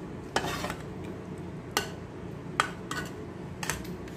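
Eating sounds from a meal of boiled crab eaten by hand: about five sharp clicks and clinks scattered over a few seconds, from dishes and crab shell being handled.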